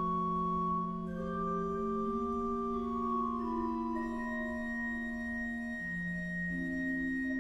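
Historic pipe organ built by Loys Isoré (1610–1612) playing slow, sustained chords that shift every second or two, with a high held note entering about halfway through.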